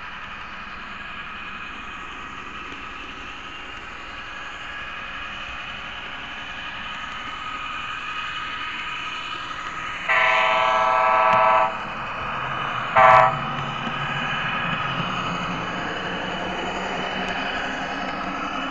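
N-scale model train running along the track with a steady whine, and a train horn sounding twice about ten seconds in: one long blast of about a second and a half, then a short one.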